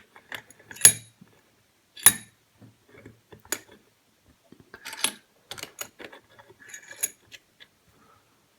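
Sharp metallic clicks and clinks of a Union rim cylinder lock being handled and clamped in a bench vise, the loudest about one and two seconds in, with lighter taps scattered through.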